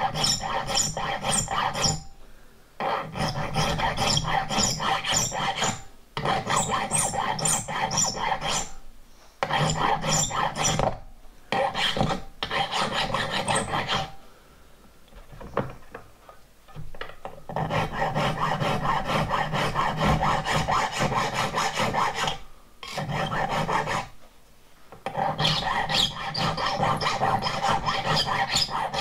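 A hand file rasps across the end of a small metal lifting link clamped in a bench vise, running over hardened filing buttons to form a radius. The strokes come in runs of a few seconds, broken by short pauses.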